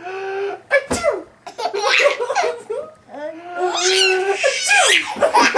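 A man's drawn-out "ah…" breaking into a sudden sneeze about a second in, followed by a baby's loud, hysterical belly laughter in long rising and falling peals.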